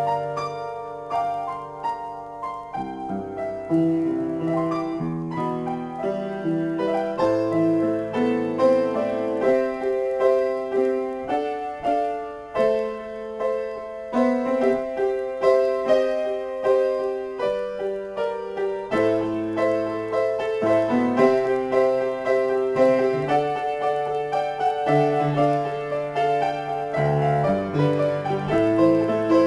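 Solo upright piano, improvised playing: a continuous stream of struck notes, a melody over low bass chords.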